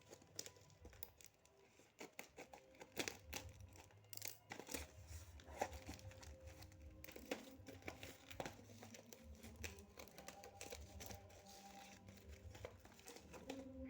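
Plastic wrapper of a chocolate wafer snack being torn open and crinkled, with many irregular sharp crackles.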